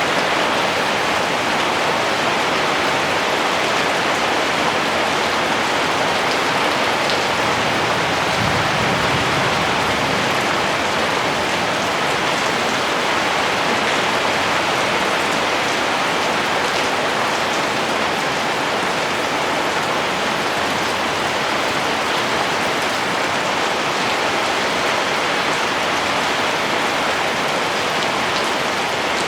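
Rain falling steadily: a dense, even hiss of many drops that holds level without change.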